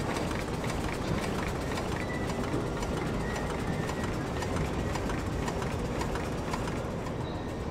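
Sentinel DG4 steam waggon's under-floor steam engine running, with a steady hiss and a stream of light, irregular clicks and knocks.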